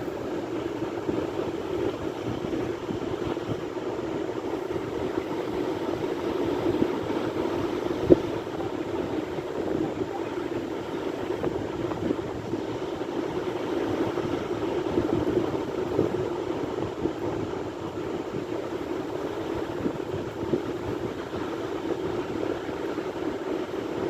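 Sea waves washing continuously as a steady rushing noise, swelling slightly about two-thirds of the way through, with a single brief click about eight seconds in.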